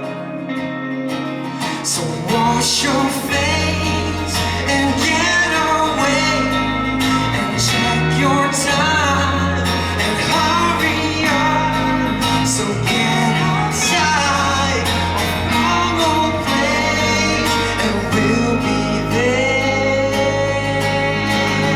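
Live band music: a singer over guitar, with a bass line coming in about three seconds in.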